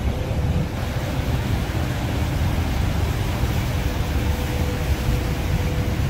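Niagara's Horseshoe Falls: a steady, deep roar of water pouring over the brink, with the rapids rushing above it.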